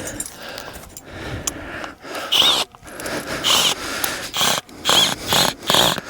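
A regular cordless drill turning a tent screw into the ground, run in short repeated bursts about two a second from about two seconds in, each with a brief whine. The screw is grinding against a rock close below the surface and will not go further.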